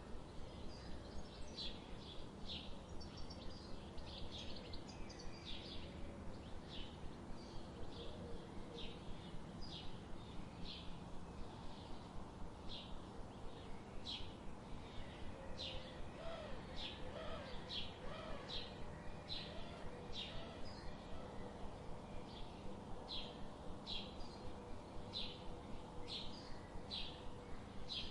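Birds chirping: a steady series of short, high chirps, each sweeping down in pitch, about one or two a second. Softer, lower warbling calls come in about two-thirds of the way through.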